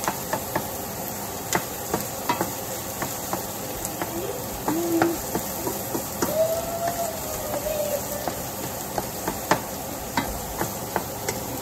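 Chopped onion and garlic sizzling in a stainless steel pan, stirred with a wooden spoon that scrapes and taps against the pan at irregular intervals.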